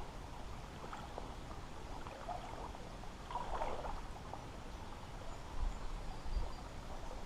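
Creek water running and trickling over rocks, with a brief louder burst of water noise about three and a half seconds in.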